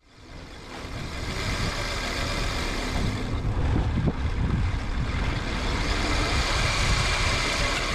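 Boat engine running under way, with a steady rush of wind and water; it swells up over the first second.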